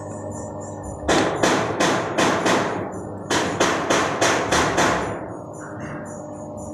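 A machine's steady hum, plausibly the macaroni-making machine running, with two runs of sharp hammer-like knocks, about three a second, five in the first run and six in the second, stopping about two seconds before the end.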